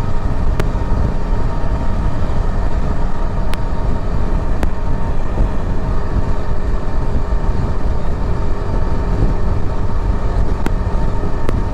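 Yezdi Adventure motorcycle running at a steady cruising speed, its engine note under a heavy rush of riding noise. A few faint clicks come through now and then.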